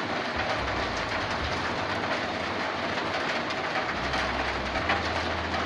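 Rainwater pouring from a gutter onto a corrugated zinc roof: a dense, steady hiss of many small impacts on the metal.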